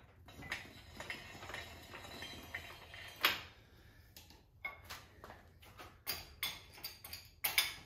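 Scattered metallic clinks and knocks from an engine hoist's chain and the motorcycle frame as the bike is lowered: one sharp knock about three seconds in and a quick run of clinks near the end.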